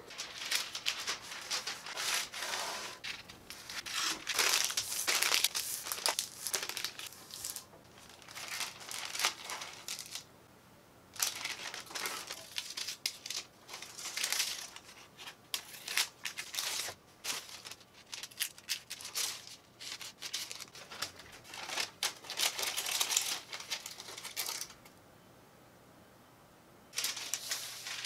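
Sheets of baking paper crinkling in bursts as they are folded, creased and cut with scissors, with short pauses between handlings.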